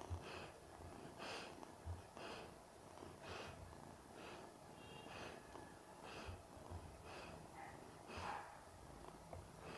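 Sleeping golden retriever breathing softly through its nose, in even puffs about once a second.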